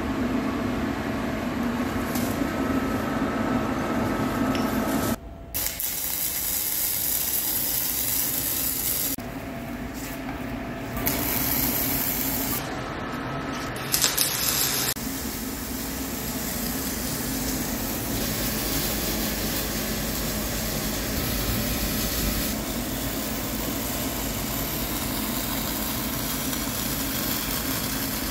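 MIG welding arc: a steady crackling hiss as wire-feed welds are run on the steel bucket, broken by a few abrupt cuts where the sound briefly changes.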